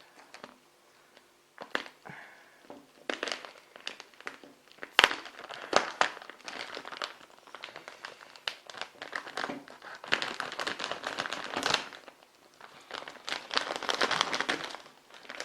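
Plastic packaging crinkling and rustling as a spool of 3D printer filament is unwrapped by hand, in irregular spells with scattered sharp clicks.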